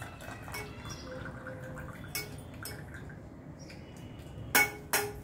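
Hot milky kashaya pouring from a saucepan through a small metal tea strainer into cups, then dripping from the strainer. Near the end come two sharp metal clinks about a third of a second apart, the strainer knocked against the pan's rim.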